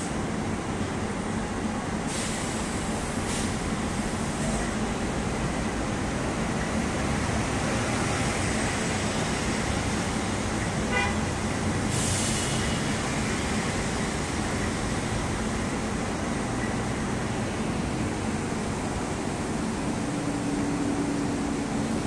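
Steady rumble and hum inside a C151B North South Line train waiting in a queue of trains, with short air hisses about 2, 3 and 12 seconds in. A brief toot sounds about 11 seconds in, and a low steady tone starts near the end.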